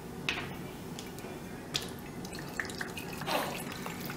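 Worcestershire sauce pouring from a bottle in drips and small splashes into the wine and soy sauce liquid in a roasting pan. The clearest splash comes about three quarters of the way in.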